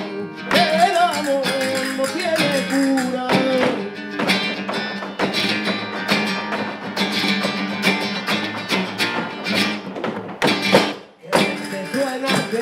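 Flamenco music: flamenco guitar with a male flamenco singer in the first few seconds, and the dancers' heel-and-toe footwork striking a wooden floor. Near the end there is a sharp accent, then a momentary break before the music goes on.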